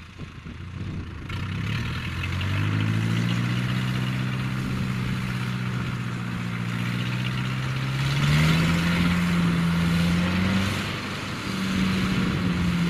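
Engine of a homemade tracked crawler vehicle running under load as it drives through flood water, its pitch rising about two seconds in and shifting again near the middle. The tracks churn the water with a steady splashing hiss that grows stronger in the second half.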